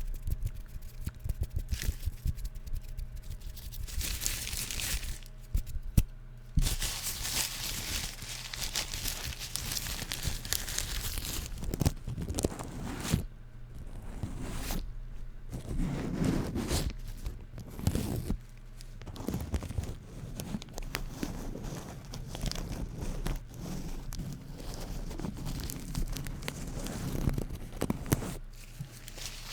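Fabric headband being fluttered and shaken, an irregular run of rustling, crinkly flaps with short pauses between them.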